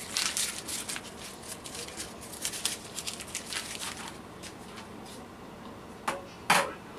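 Light crinkling and rustling of handling, dying down after about four seconds, then two sharp knocks near the end.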